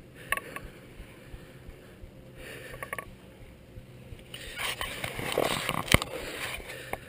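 Rustling and scraping handling noise from the rider and gear, loudest from about four and a half to six and a half seconds in, with a sharp knock about six seconds in.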